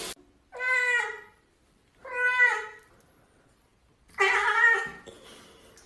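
Domestic cat giving three drawn-out meows a second or two apart, in protest at being held over bath water.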